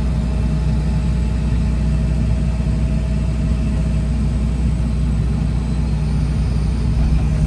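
John Deere 245 excavator's diesel engine running steadily, heard from inside the operator's cab, with a faint steady whine over it.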